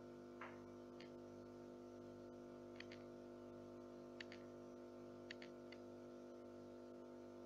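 Near silence: a faint steady hum, with a few faint clicks, mostly in close pairs.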